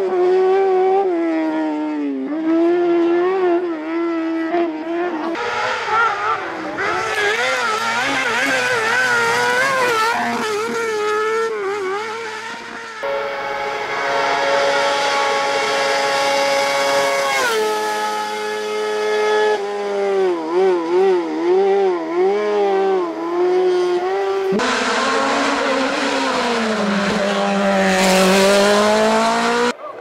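Kart cross buggies' high-revving motorcycle engines racing flat out, revving to around 16,000 rpm. The engine note climbs and drops with throttle and gear changes. Several separate runs follow one another, so the sound changes abruptly every few seconds.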